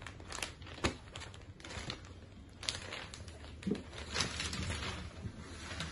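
Irregular crinkling and rustling of a folded zari silk saree being handled and opened out by hand, in a string of short rustles.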